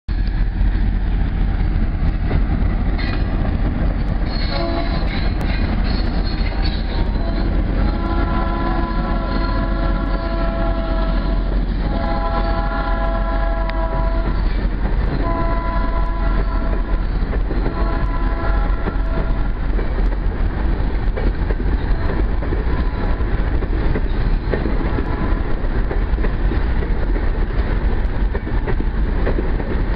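Diesel freight train led by an ALCo RSD16 and an EMD GR-12W locomotive, accelerating past with a heavy, steady rumble. Its several-note horn sounds four blasts from about a quarter of the way in to about two-thirds through. Empty freight cars then roll by with wheel clatter.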